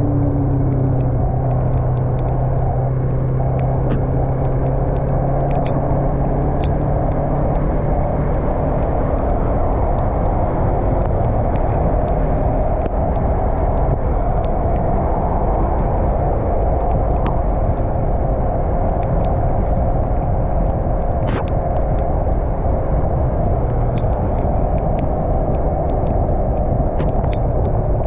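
Yamaha MT-03 parallel-twin motorcycle engine running steadily at riding speed, under a constant rush of wind and road noise.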